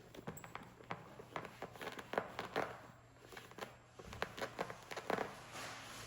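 Hands rubbing conditioner into a leather bag and handling it: irregular soft taps and clicks with brief rubbing swishes.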